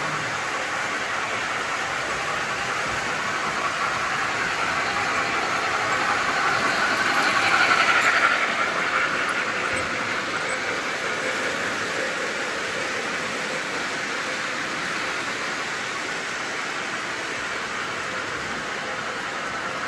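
Model train rolling along its track, growing louder as it passes close about eight seconds in, then fading away again.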